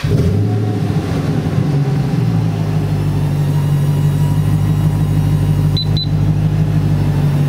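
Supercharged Dodge Challenger engine catching on a start and settling into a steady idle, its pitch dropping a little about two seconds in.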